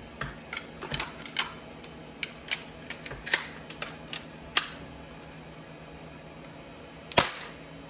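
3D-printed plastic flintlock foam-dart blaster being handled and loaded with a standard foam dart, giving scattered light plastic clicks and knocks, then one sharp loud snap about seven seconds in as it fires a test shot through a chronograph. A faint steady hum sits underneath.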